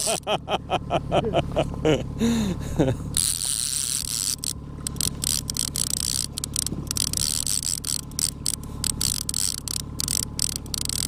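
Trolling reel being cranked to wind in a hooked fish: a fast run of mechanical clicks, then slower, uneven clicking as the cranking goes on.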